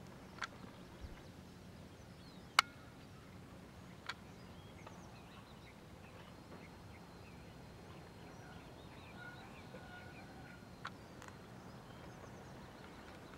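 Quiet outdoor ambience with faint bird chirps over a low steady hum, broken by several sharp clicks, the loudest about two and a half seconds in.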